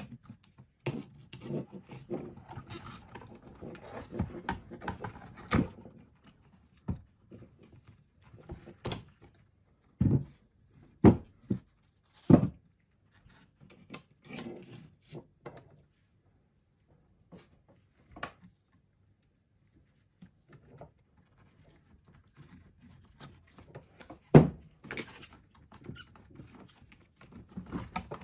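Gloved hands handling sealed lead-acid battery cells, their cables and the plastic cartridge tray: rustling and scraping with a series of sharp knocks as the cells are shifted out of the tray. The loudest knocks come about ten to twelve seconds in and once more about four seconds before the end.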